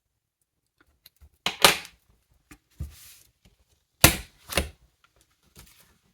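Paper stickers being handled, peeled from their backing and pressed down on planner pages: a few short, crisp crackles and taps, the two loudest about a second and a half in and about four seconds in.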